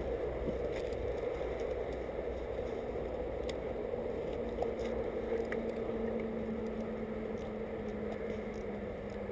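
Close rustling and scraping of a player's clothing and gear as he moves through woodland, with a few faint clicks and a faint steady hum setting in about three seconds in.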